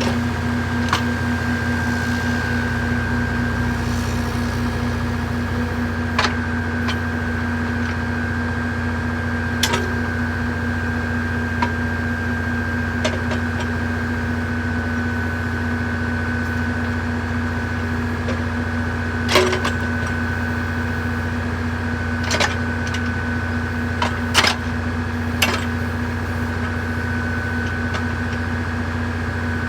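John Deere 35G mini excavator's diesel engine running steadily, with a steady high whine over the hum and a few short sharp knocks, the loudest about two-thirds of the way through.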